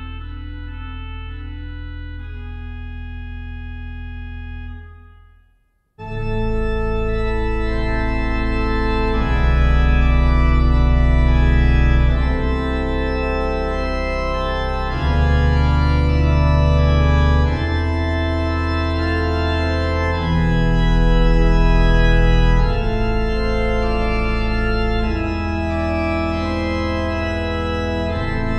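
Organ playing a held chord over a deep pedal note that fades to a brief silence about five seconds in. A louder passage of sustained chords over deep, changing bass notes then begins.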